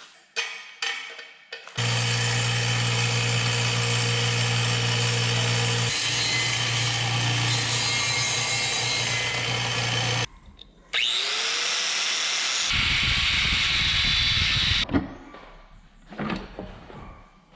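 Power tool working metal, running steadily for about eight seconds, stopping, then starting again with a brief rising whine and running about four seconds more, followed by a few knocks near the end.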